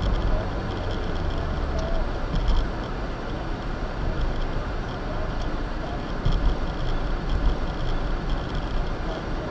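Steady road and engine noise heard inside a car's cabin while driving at about 30 to 37 mph, a low rumble with no sharp events.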